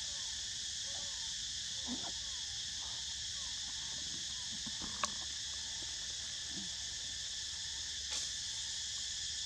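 Steady high-pitched chorus of forest insects, with faint short chirps and a single sharp click about five seconds in.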